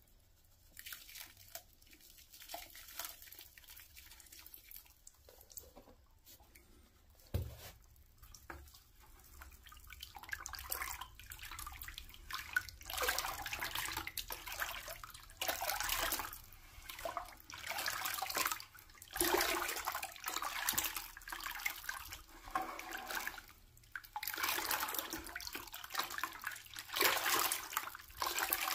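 A wide paintbrush stirring lime whitewash in a bucket: wet, sloshing swishes in repeated strokes. The liquid iron oxide pigment is being mixed in, turning the paint red. The stirring is faint at first and louder from about ten seconds in.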